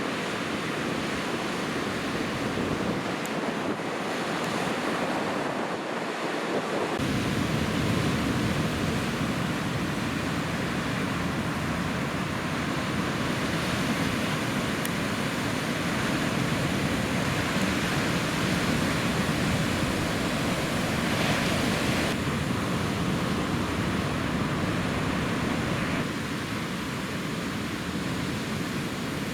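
Ocean surf washing steadily, with wind noise on the microphone, its low rumble stronger from about seven seconds in.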